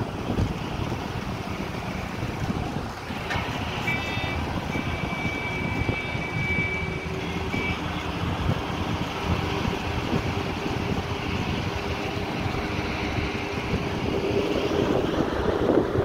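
Road and wind noise heard from inside a moving vehicle, with wind buffeting the microphone. A high steady tone sounds for about three seconds from about four seconds in, with a short break near its end.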